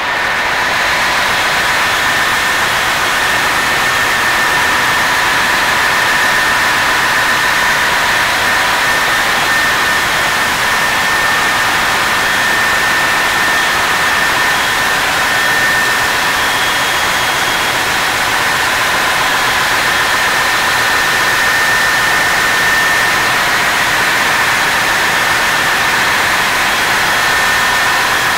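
Loud, steady machinery noise of a ship's auxiliary engine room, with the in-line MAN STX 7L23/30H diesel generator sets running, a dense roar with a steady high whine through it. It swells at the start as the door into the room opens.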